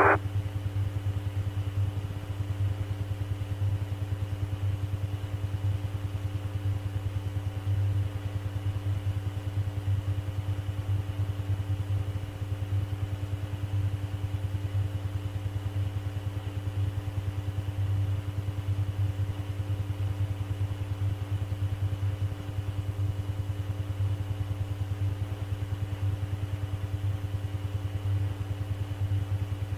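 Steady low electrical hum with a few faint steady tones above it: the background noise of an air traffic control radio recording while no one is transmitting.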